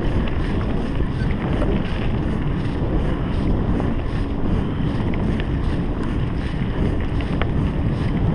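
Wind buffeting a GoPro's microphone and mountain bike tyres rumbling over a dirt forest singletrack at speed, a steady, loud noise with a few sharp ticks through it.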